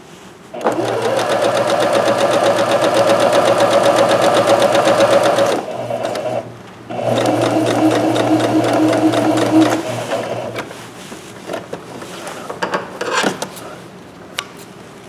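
Janome electric sewing machine running steadily, sewing a long basting stitch along a seam: two runs with a short pause about six seconds in, stopping about ten seconds in. A few light clicks follow as the thread ends are snipped with scissors.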